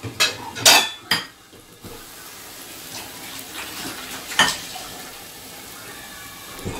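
Puff puff dough balls deep-frying in hot oil in a frying pan, a steady sizzle. A few sharp clatters of pots and pans cut in during the first second or so, and another about four seconds in.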